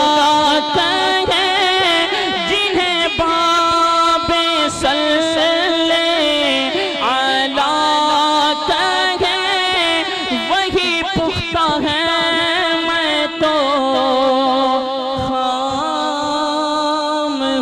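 Man singing a devotional manqabat through a microphone. It is a long, drawn-out, ornamented vocal line whose pitch slides and bends, with no break.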